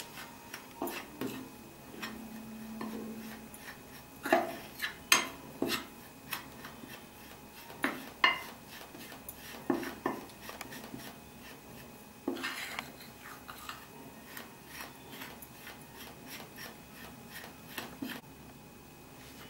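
A metal spoon stirring a dry flour and spice mix in a glass dish: soft scraping with irregular, scattered clinks of spoon against glass.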